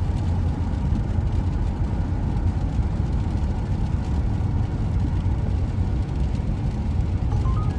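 Steady low vehicle rumble, even throughout with no breaks or changes, most of its weight in the deep bass.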